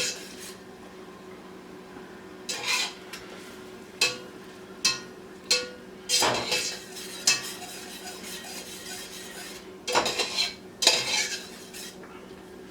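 A utensil stirring diced poblano peppers sautéing in melted butter in a pot: a series of short scrapes and knocks against the pot at irregular intervals, over a steady faint sizzle.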